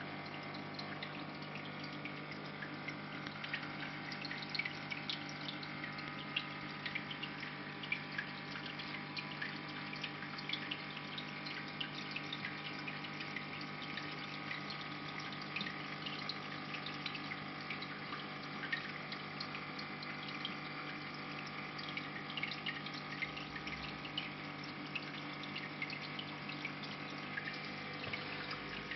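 Marine aquarium's water circulation: a pump hums steadily while water trickles and splashes with small scattered drips.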